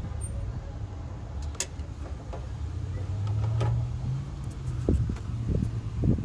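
A steady low motor hum, with two sharp clicks and then a few low knocks near the end as the power steering reservoir is being refilled.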